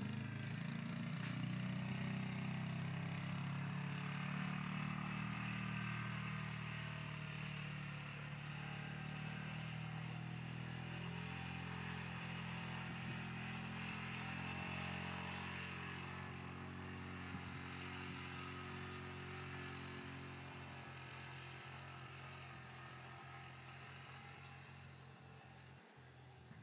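A steady, low engine drone that slowly fades over a steady hiss.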